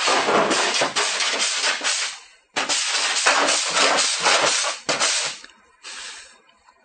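Hand body file rasping across a flat aluminum body panel, filing off the leftover stub of a welded pulling pin after a dent pull. Two long strokes of rasping, then a short third one near the end.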